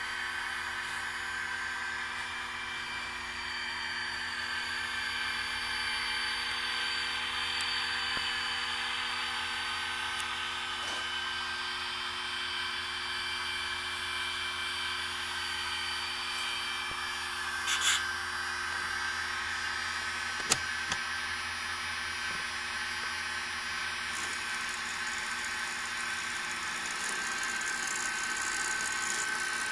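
Several HO-scale diesel locomotives' sound decoders playing idling engine sounds together through their small speakers: a steady whirring hum with a thin high whine. A brief hiss comes about eighteen seconds in, and a sharp click a couple of seconds later.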